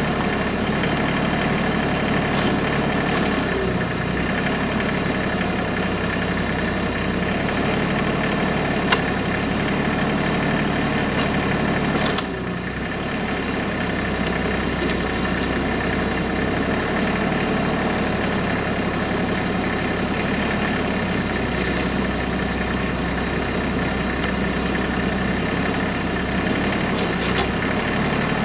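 Tractor engine running steadily. There is one sharp knock about nine seconds in, and a brief clatter about twelve seconds in, after which the sound drops slightly.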